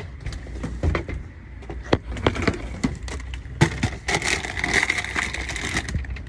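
Scattered knocks, taps and rubbing from a phone being handled and swung about while it records.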